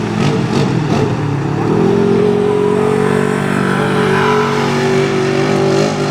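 Off-road vehicle engine revving hard. The pitch climbs about two seconds in, then stays high and steady, easing off briefly near the end.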